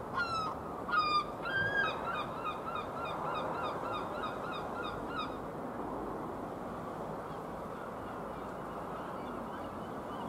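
A gull calling: two or three drawn-out, falling calls, then a rapid run of about a dozen short, repeated calls at about four a second that stops about five seconds in. Fainter, higher calls come near the end, over a steady background hiss.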